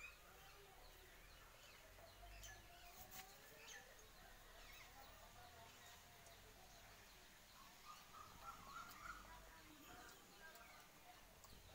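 Faint background of scattered bird chirps and short calls, with a brief flurry of notes about eight seconds in.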